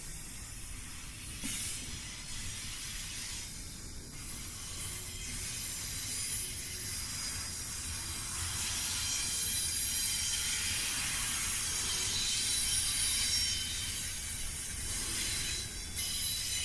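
Freight train cars rolling past on the rails, a steady rumble and hiss of wheels on track with faint high wheel squeal, growing a little louder in the second half.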